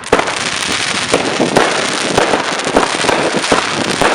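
Fireworks crackling: a dense, continuous rattle of many small bangs and pops following a sharp bang, loud throughout.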